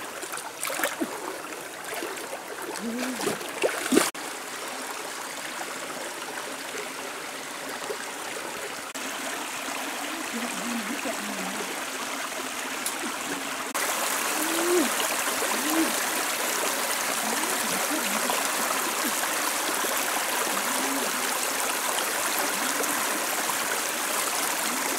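Shallow stream flowing over rocks, a steady rushing and trickling, with splashes of someone wading through the water in the first few seconds. The water gets louder about halfway through.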